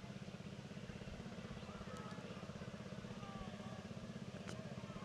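Motorcycle engine idling steadily, with an even, fast pulse and no revving.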